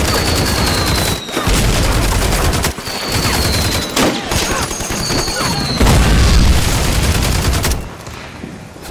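Battle sound effects: dense rapid rifle and machine-gun fire with deep explosion booms in two stretches, and three short high whistles that fall slightly in pitch. The firing dies away near the end.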